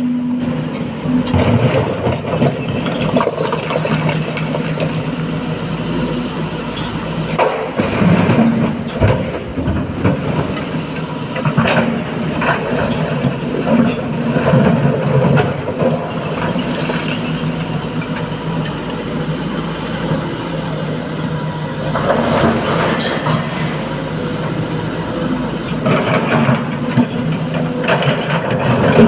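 Diesel engine of a SANY SY225 excavator working at load, its hum rising and falling, with a clatter every few seconds.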